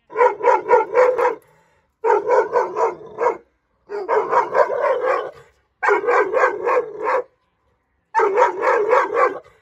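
Dogo Argentino barking aggressively at a stranger outside its kennel fence: five quick volleys of deep barks, about four barks a second, each volley a second or so long with short pauses between.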